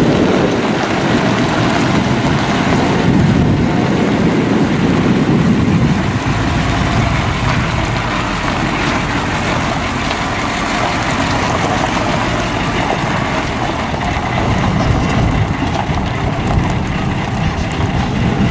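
Diesel engine of an old cab-over crane truck running as the truck moves slowly past, a steady rumble with tyre noise on gravel.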